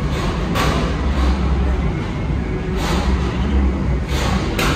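Car engines running at a car show: a steady low rumble, with three short rushes of noise.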